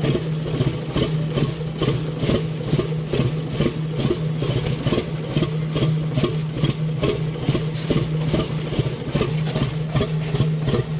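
Backhoe diesel engine running steadily with an even, pulsing beat, now fitted with a new fuel filter after fuel starvation from a clogged fuel pump made it hard to start.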